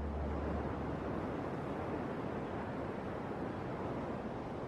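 Steady rush of ocean surf.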